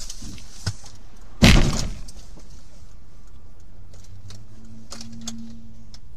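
A motorcycle collides with the front of the car: one loud crash about one and a half seconds in, heard from inside the car, a sharp impact that dies away within half a second. A few small knocks and a low hum follow.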